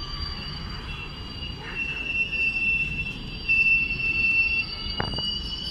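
ICF passenger coaches rolling past with the steady high-pitched squeal of steel wheels over a low running rumble, the squeal loudest midway. A sharp double clank comes about five seconds in.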